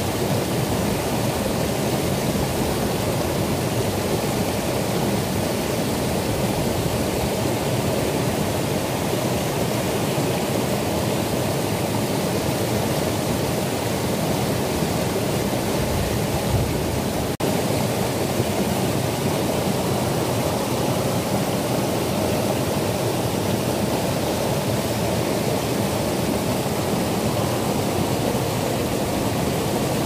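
A mountain stream rushing and splashing over a small rocky cascade: a steady, even water noise, broken by a brief dropout about seventeen seconds in.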